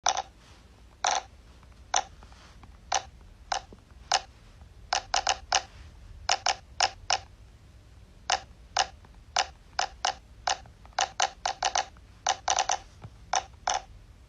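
Silicone pop-it fidget toy having its bubbles pressed one after another: a run of short, sharp pops at an uneven pace, sometimes several in quick succession.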